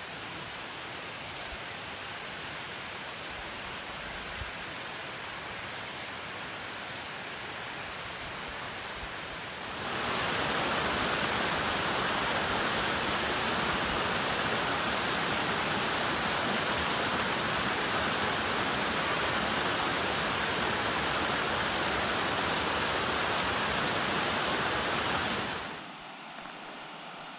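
Rushing water of a small mountain creek, a steady hiss that jumps louder about ten seconds in and drops away sharply near the end.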